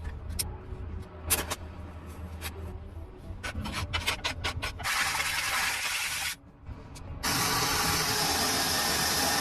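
Two long bursts of spray hissing, the first about a second and a half long and the second about two seconds, after a run of sharp clicks and taps.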